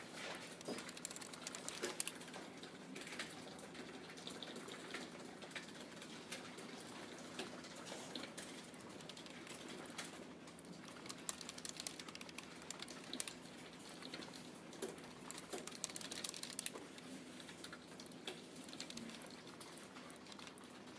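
Fast, continuous typing on a Logitech computer keyboard with round white keys: a faint, rapid run of key clicks.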